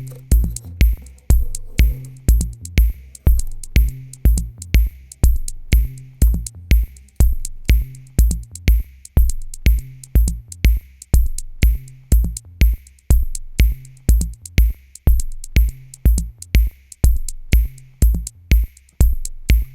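Electronic background music with a steady drum-machine beat: a kick drum about twice a second, sharp clicks between, and a low bass line.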